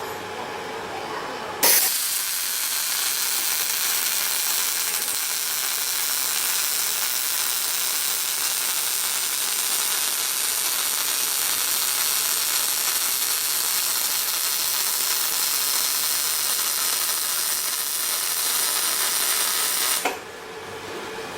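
A loud, steady hiss from factory machinery starts suddenly about two seconds in and cuts off abruptly near the end, over a quieter workshop hum.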